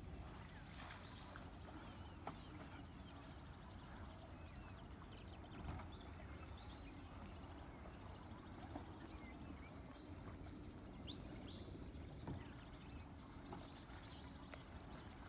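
Quiet riverside ambience: a low steady rumble with scattered short bird chirps and a few faint clicks.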